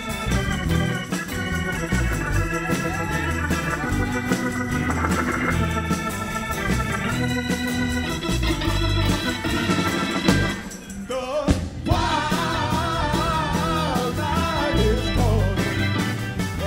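Live rock band playing, with an organ carrying the lead in held chords over drums, bass and electric guitar. The music dips briefly about eleven seconds in, then the full band comes back in.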